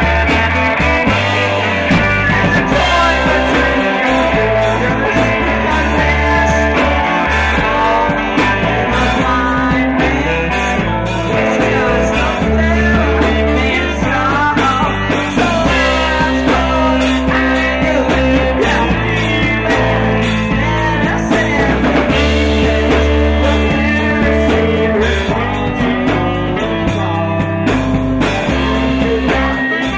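Live rock band playing: electric guitar, bass line and drums, with a woman and a man singing.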